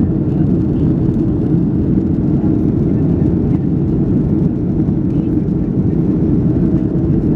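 Steady low roar of a passenger airliner's cabin in flight: engine and airflow noise heard from inside the cabin, even and unchanging.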